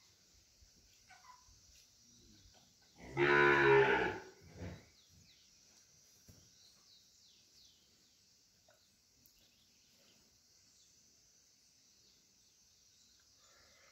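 Heifer in a difficult labour mooing: one loud, drawn-out moo about three seconds in, then a brief second call. The sound is a sign of her distress while calving.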